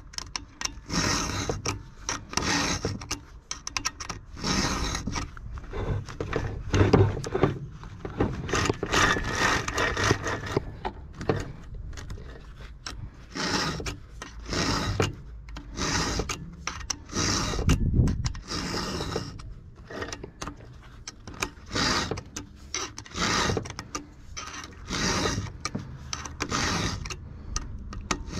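Round chainsaw file rasping across the cutters of a .404 semi-chisel chain, in repeated push strokes about once a second with short pauses between groups.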